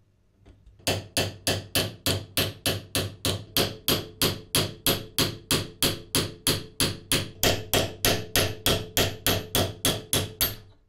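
Hammer tapping a metal punch in a steady rhythm, about three to four blows a second, driving a rusted iron coil core out through its vulcanized fibre washers. The blows start about a second in and run on evenly until just before the end.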